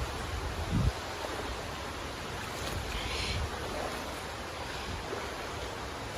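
Steady rushing of flowing creek water, with a low thump just under a second in.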